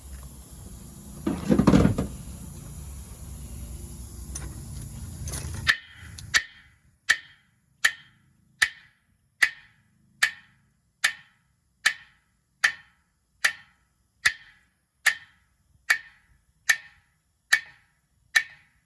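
A hammer striking metal in a steady, even rhythm, about one ringing clang every 0.8 seconds, starting around six seconds in. Before that there is a louder rushing noise burst about a second and a half in.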